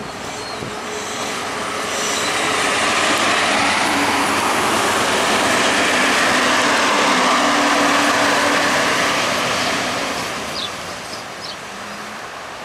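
Siemens Desiro diesel multiple unit passing close by: its diesel engine hum and the wheels on the rails swell as it goes past, then fade from about ten seconds in as it moves away.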